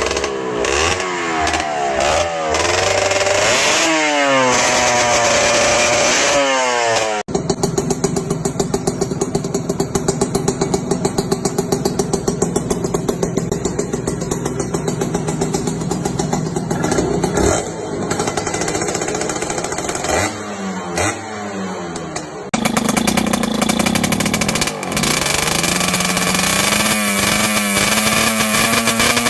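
Motorcycle exhaust pipes being revved: the engine is blipped repeatedly, pitch rising and falling with each rev, then runs more steadily before revving again. The sound changes abruptly twice, as from one bike's exhaust to another's.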